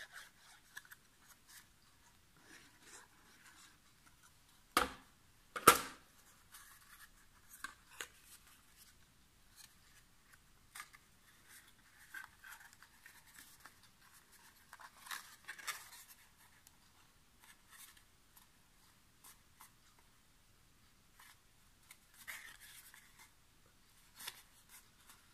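Hands handling, gluing and pressing a small cardstock box: faint paper rustling and the rub of a glue stick on card, with two sharp knocks close together about five seconds in.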